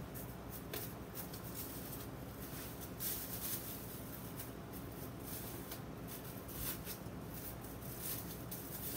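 Thin plastic grocery bag crinkling and rustling in irregular bursts as it is handled and pushed down between a helmet's liner and shell with a stiff plastic tool.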